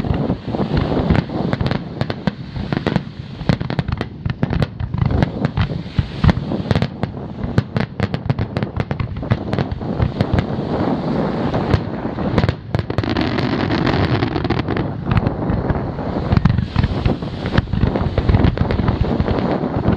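Fireworks display with aerial shells bursting in quick succession: a dense, continuous run of bangs and crackles, many a second, over a low rumble.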